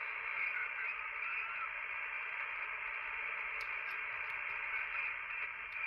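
Steady receiver hiss from a Yaesu FT-One HF transceiver's speaker, band noise with no signal in it, held to the narrow voice passband. A few faint clicks come in the second half as keypad buttons are pressed to enter a new frequency.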